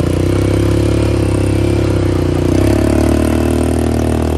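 Quad bike (ATV) engine running close up at a steady idle, its note shifting up slightly about halfway through.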